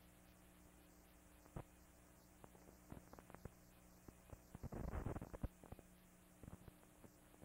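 Near silence: a faint steady hum and hiss with scattered clicks and a short burst of crackle about five seconds in, the background noise of an old film soundtrack.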